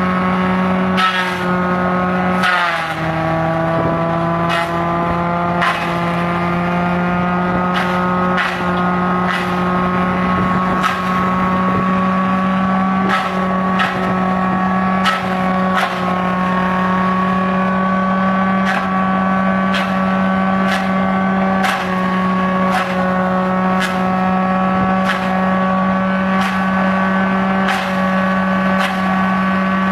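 Tractor-driven crusher running steadily while palm fronds are fed into it, with frequent sharp knocks as the cutting blades chop the fronds. Its hum drops in pitch about two and a half seconds in as it takes a load, then slowly climbs back.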